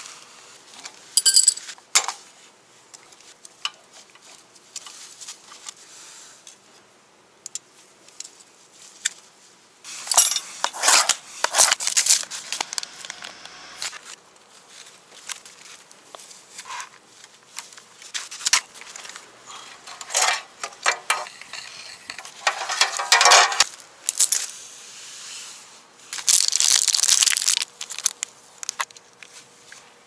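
Honda Super Cub 110's roller drive chain clinking and rattling as gloved hands handle and fit it, with scattered sharp metal clicks and a few longer bursts of rattling.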